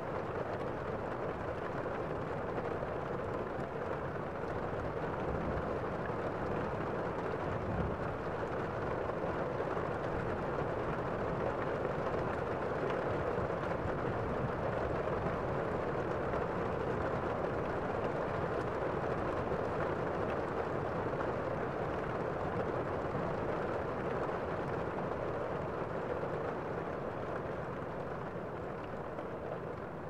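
Waterfall cascading over rocks into a pool: a steady rush of falling water, a little quieter near the end.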